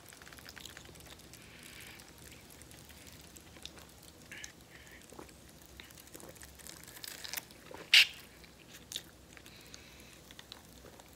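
Mouth sounds of someone eating a Hot Pocket straight off a plate held to the face: soft chewing and smacking, with scattered clicks and one sharp, louder smack about eight seconds in.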